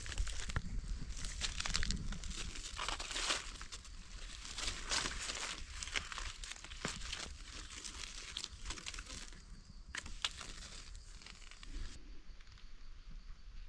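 Dry leaf litter and grass rustling and crackling in irregular bursts, busiest in the first half and thinning out toward the end.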